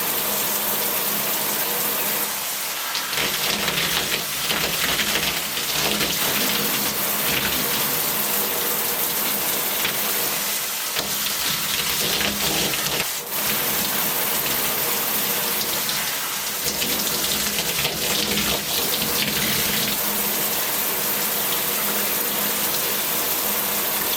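Steady running water, stopping suddenly at the end.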